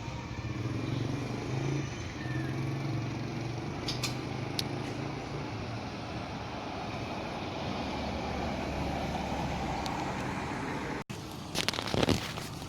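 Road traffic: motor vehicle engines running and passing. The sound drops out briefly near the end, followed by a few loud sharp knocks.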